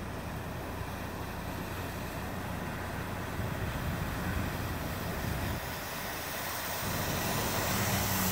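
Stock Ford Ranger pickup driving through a flooded river crossing: its engine runs under a steady rush of water and splashing from the bow wave, growing louder near the end as the truck comes up out of the water.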